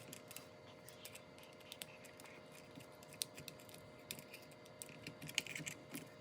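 Light, irregular clicking and scraping of small metal parts handled by hand: a wire clip being worked onto a nitro RC car's exhaust pipe.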